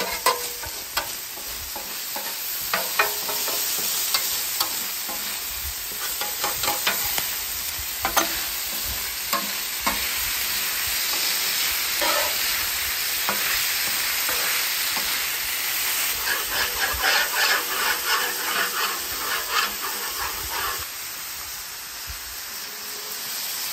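Cubed marinated pork sizzling and frying on a hot flat-top griddle, with repeated scrapes and clicks of a metal spatula on the steel as the meat is turned and pushed across the cooktop.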